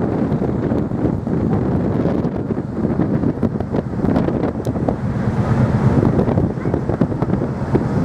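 Wind buffeting the microphone, a loud churning low rumble.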